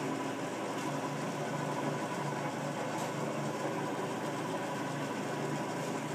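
South Bend engine lathe with a 575-volt motor running steadily under power cross feed: a constant mechanical hum from the motor and gearing with a faint regular pulsing.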